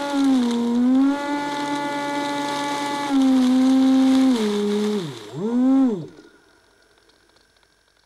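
Electric motor and propeller of a Multiplex EasyStar model plane revving on the ground: a steady whine that dips and climbs back, drops low and rises again twice, then winds down and stops about six seconds in, over a steady hiss.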